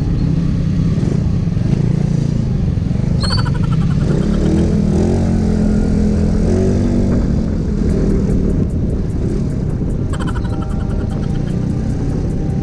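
Motorcycle engine running while riding, its pitch rising and falling with the throttle around the middle.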